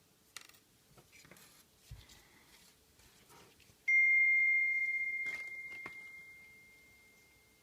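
Faint small clicks from handling tools and the phone's small parts, then, about four seconds in, a single clear bell-like ding that starts suddenly and slowly fades away over several seconds.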